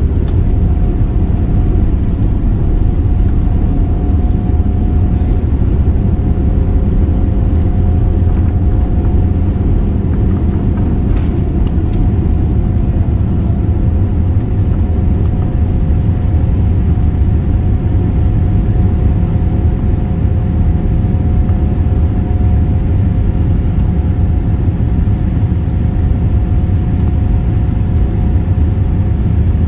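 Boeing 787 jet engines heard inside the cabin during takeoff and the first climb: a loud, steady low rumble with a faint steady whine above it.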